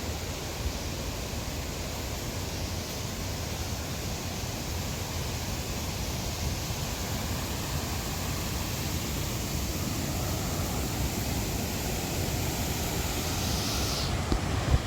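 Steady rushing of the Putna river's waterfall, an even, dense noise of falling and running water. About a second before the end the upper hiss changes abruptly.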